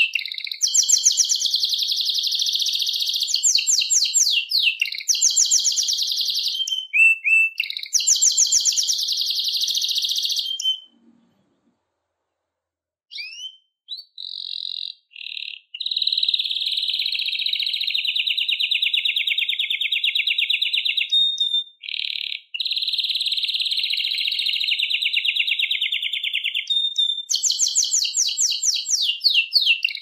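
Canary singing: long, rapid, high-pitched trills and rolls in a continuous song, breaking off for a couple of seconds about eleven seconds in, then a few short notes and another long rolling trill, with a faster trill near the end.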